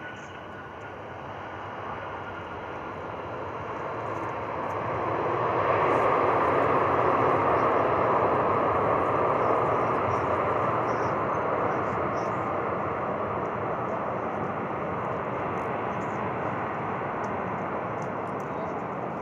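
Airbus A340-313 jet engines and rolling airframe during the landing roll, just after touchdown. The engine noise swells into a loud, broad rush about five seconds in, then slowly fades as the airliner slows on the runway.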